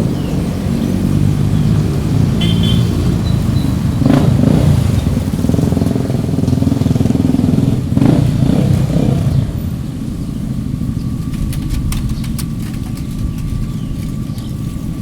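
Street traffic: a motor vehicle's engine runs loud and close for several seconds, then fades about nine seconds in, leaving a lower steady traffic hum.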